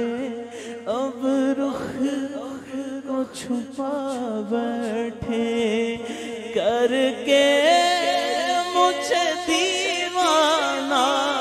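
A man sings a naat, an Urdu devotional poem, unaccompanied into a microphone. His voice wavers through ornamented notes over a steady low drone. About seven seconds in, the singing climbs to higher, louder notes.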